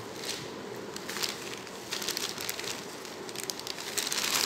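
Plastic bubble-wrap packaging crinkling and rustling as it is handled, in irregular crackles that grow denser and louder near the end.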